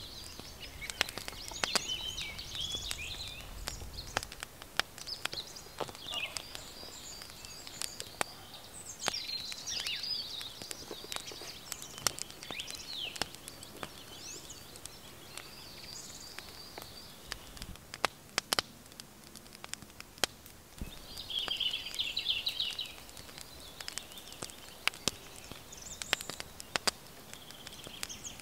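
Small birds singing in chirps and trills, one dense trill just after the middle, over scattered sharp clicks and ticks.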